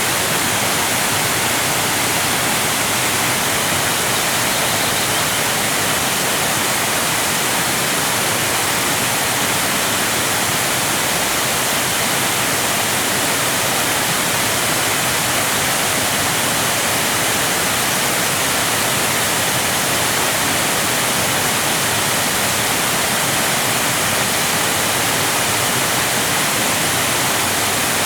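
Steady rushing of a waterfall, an even hiss weighted toward the high end that holds at the same level throughout.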